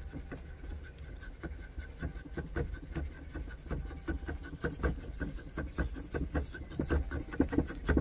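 Victorinox Camper pocket-knife blade shaving curls off a green stick to make a feather stick: a quick run of short, irregular scraping strokes of steel on wood.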